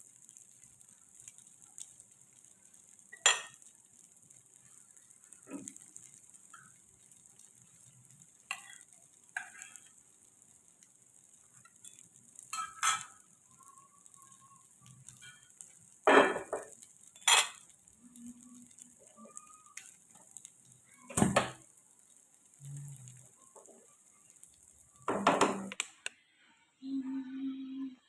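Kitchen utensils clinking and knocking against cookware now and then, about nine sharp strikes in all. A faint steady high hiss runs under them and cuts off near the end.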